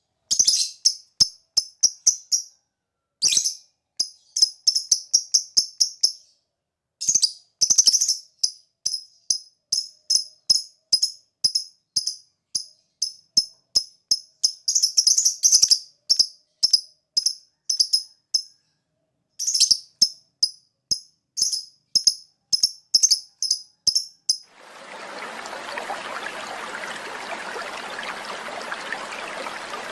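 Lovebird chirping in rapid runs of short, sharp, high chirps, several a second, broken by brief pauses: the ticking 'ngetik' call. About 24 seconds in the chirping stops and a steady hiss takes over.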